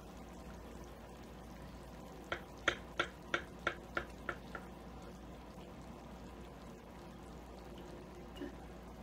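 Kitchen knife sawing through the baked crust of a minced-meat roll in a metal baking tray: a quick run of about nine sharp clicks, roughly four a second, growing fainter, over a low steady room hum.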